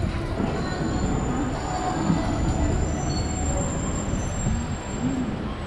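Street noise: a steady low traffic rumble with a faint, high, steady squeal that comes in about half a second in and fades near the end.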